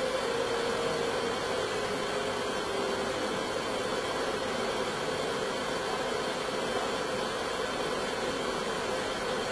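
Steady hiss with a faint hum underneath, even throughout with no distinct sound events.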